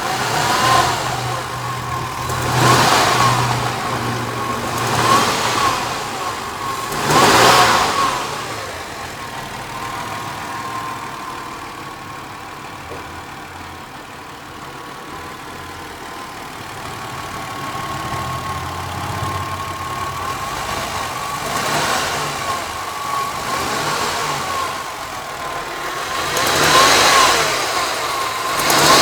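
Ford Contour engine revved in several short blips, in two groups with steadier running between. The owner hears a rattling ('cascabeleo') on acceleration that shows up only once the engine is warm; his mechanic found nothing wrong.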